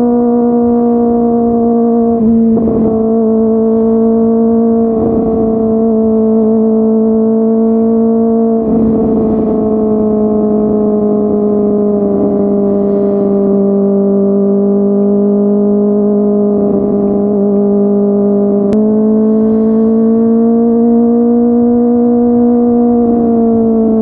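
Kawasaki ZX-25R's inline-four engine through a Yoshimura R55 slip-on exhaust, holding a steady high-revving drone under way. Its pitch sags slowly, lifts about three-quarters of the way in, then eases down again near the end.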